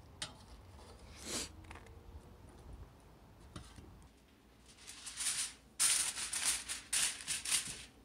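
Aluminium foil crinkling and rustling in a run of loud crackles over the last three seconds, as it is crumpled over a baking sheet.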